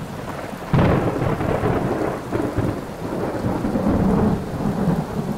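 Thunder rumbling over steady rain, with a sudden loud crack about a second in that rolls on as a low rumble.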